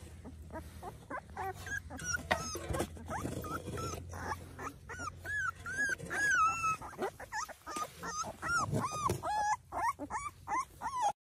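A litter of young puppies whimpering and crying: many short, high-pitched whines that overlap and come thicker through the second half, breaking off abruptly near the end. Scrapes and knocks of a shovel digging in dry earth come in the first few seconds.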